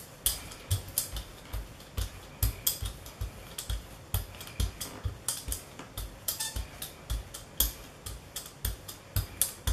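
Rubber brayer being rolled quickly back and forth through wet acrylic paint on a gel printing plate, spreading it into a thin layer: a run of short sticky clicks and taps, about three a second, each with a soft low thump.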